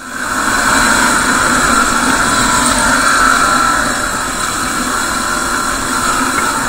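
Steady engine and wind noise from a 2016 Yamaha WR250R single-cylinder dual-sport motorcycle on the move, picked up by an action camera. It swells up within the first half-second, then holds level.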